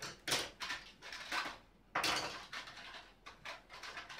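Rummaging through a tin, its contents clinking and clattering in a run of short rattles, with a sharper knock about two seconds in.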